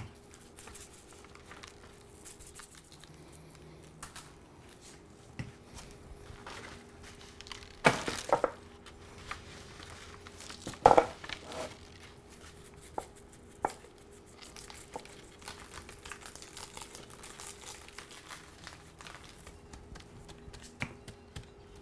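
Quiet rustling and crinkling of rubber gloves and butcher paper as a dry rub is spread by hand over raw beef ribs, with a few sharper handling noises about 8 and 11 seconds in.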